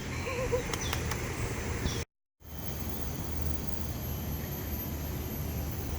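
Steady outdoor background noise, an even hiss-like hum with no clear single source. It drops out to complete silence for a moment about two seconds in, where the video is cut.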